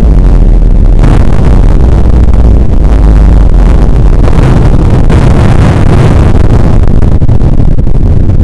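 Slowed-down, bass-boosted soundtrack: a loud, distorted low rumble with no clear pitch, clipping near full scale.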